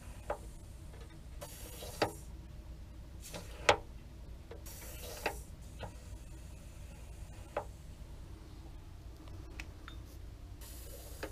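Pneumatic retract on a model aircraft's tail wheel being cycled: three short bursts of air hiss as the air cylinder is switched, with sharp mechanical clicks and clacks as the mechanism moves and locks, the loudest a little under four seconds in.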